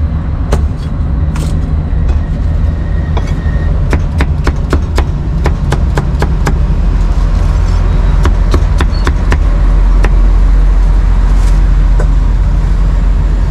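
Cleaver chopping on a round wooden chopping block: sharp knocks, a quick run of three or four a second in the middle and a few scattered ones before and after. Under it, a loud steady rumble of road traffic that swells in the second half.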